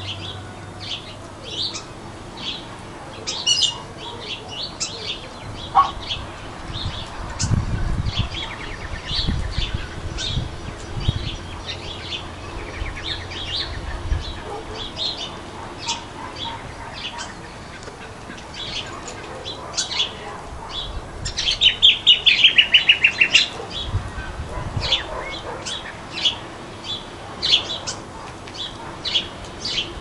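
Crimson rosellas calling: many short high chirps and whistles, with a loud rapid chattering run of calls a little after two-thirds through. Low dull thumps come and go in the first half.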